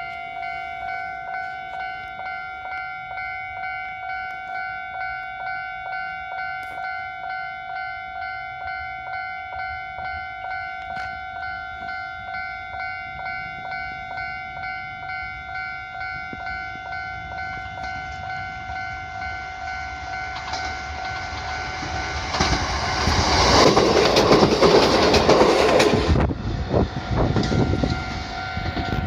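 Japanese level-crossing warning bell ringing in an even, repeating ding-ding. About three quarters of the way in, a Kotoden electric train runs loudly over the crossing for a few seconds, its wheels clattering over the rail joints, and the bell keeps ringing after it has passed.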